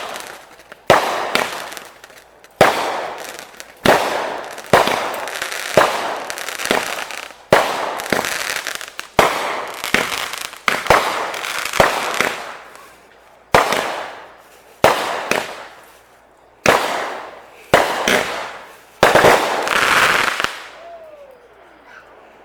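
Fireworks going off in quick succession: about fifteen loud bangs, roughly one a second, each trailing off over about a second. They stop about 20 seconds in.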